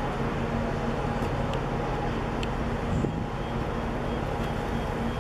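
Steady low mechanical rumble with a steady hum running through it.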